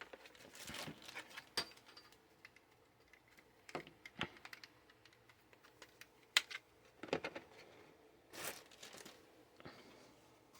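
Faint handling noises: scattered light plastic clicks and brief rustles as a cordless drill kit and its parts are picked up and handled, with a sharper click about six and a half seconds in.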